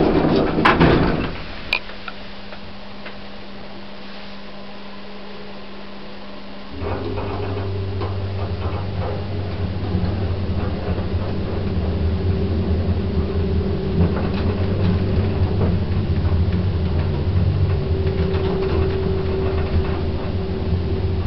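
1980s Stannah passenger lift: its doors close with a couple of clicks near the start, a faint steady hum follows, then about seven seconds in the drive starts with a sudden, louder steady low hum as the car travels.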